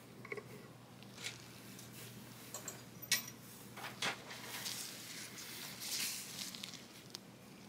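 Gloved hands handling an open folding knife: soft glove rustling with a few small clicks and taps, the sharpest about three seconds in.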